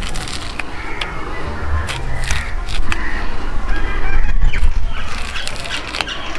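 A kinnow being peeled with a small knife: short sharp clicks and snaps of the blade and the tearing peel, over a low rumble, with fowl calling in the background.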